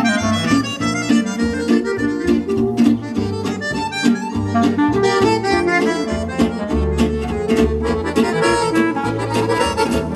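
Accordion musette music with a steady rhythmic bass line, played back through loudspeakers driven by a single-ended Eimac 250TH transmitting-tube amplifier.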